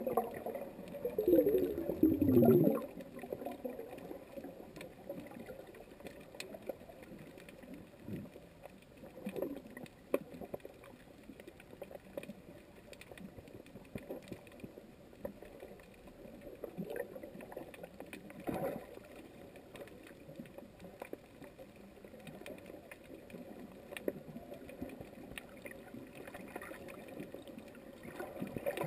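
Underwater ambience picked up through a GoPro's housing: a steady muffled wash with scattered faint clicks. In the first couple of seconds it is louder, with a sound that slides down in pitch twice.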